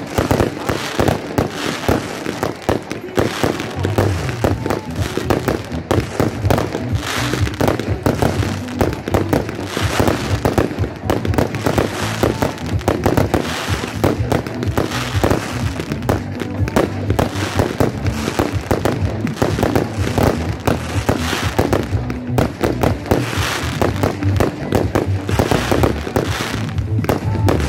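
Fireworks display with aerial shells bursting in rapid succession: an unbroken run of bangs and crackles.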